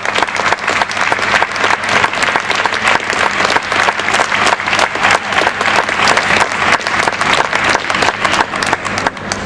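Arena crowd applauding, many hands clapping densely and steadily; the clapping cuts off suddenly at the very end.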